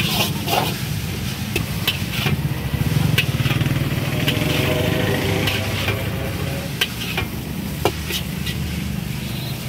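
Veg noodles being stir-fried in a steel wok: steady sizzling over the low, even rush of the gas burner, with the metal spatula scraping and clanking against the wok at irregular moments, about once or twice a second.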